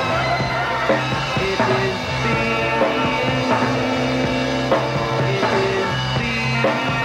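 Late-1960s psychedelic rock music with drums and sustained notes, heard from an FM radio aircheck recording.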